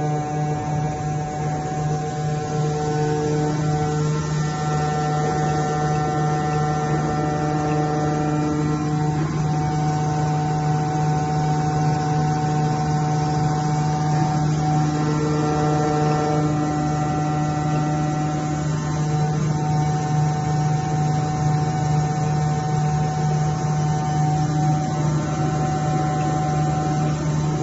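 Hydraulic test bench's motor-driven pump running with a steady hum, with several higher whining tones above it that come and go every few seconds.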